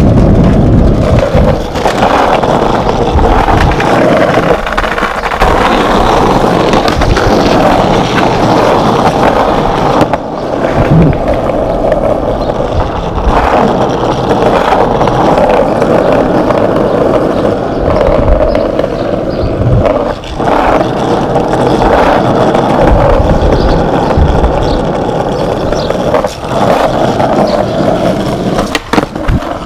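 Skateboard wheels rolling steadily over rough pavement, with a few sharp clacks and knocks from the board along the way.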